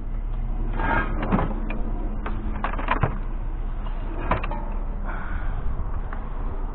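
A vehicle's steady low rumble, with a handful of sharp clicks and knocks over the first four or so seconds.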